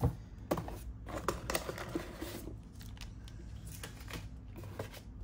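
Cardboard packaging being handled: scattered rustles, scrapes and light clicks of the box and its cardboard inserts, with a sharp knock at the very start.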